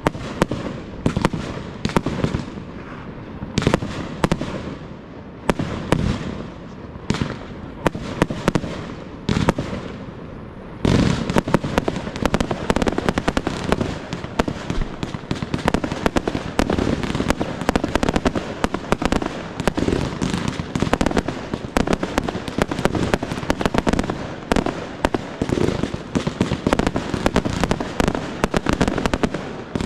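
Professional aerial fireworks display: separate bangs of bursting shells and rising comets for the first ten seconds or so, then, about eleven seconds in, a dense barrage of rapid bangs that runs on without a break.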